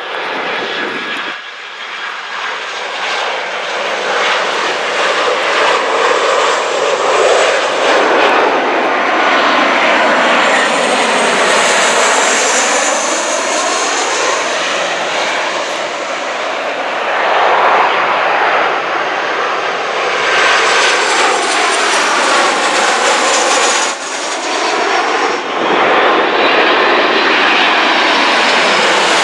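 Jet airliners passing low overhead on landing approach, engine noise building to a loud, steady roar with sweeping tones that glide down and up as each aircraft goes over. The sound breaks off abruptly a couple of times where one pass cuts to the next.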